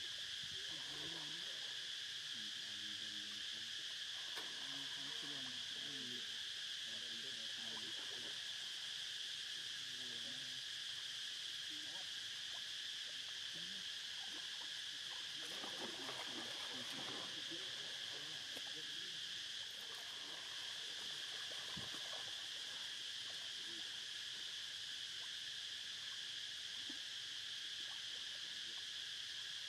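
Steady, high-pitched drone of an insect chorus, unbroken and unchanging.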